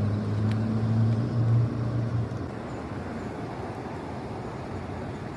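A car engine hums low for about two seconds, then fades, leaving steady road or traffic noise.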